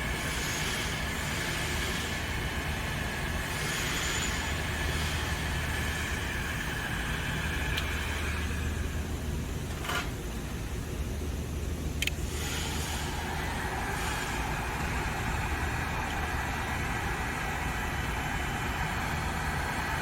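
Heat gun blowing steadily while shrinking heat-shrink sleeving over a motor's lead wires, with a low hum and a faint whine. About halfway through come two clicks, and after the second the blower's sound shifts.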